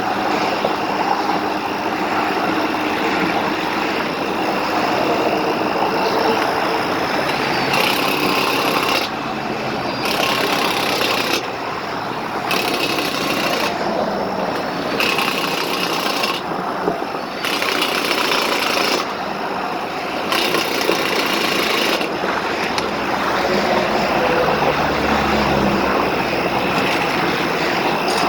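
Steady noise of heavy interstate traffic passing. Through the middle stretch a higher-pitched sound starts and stops again and again, about once a second.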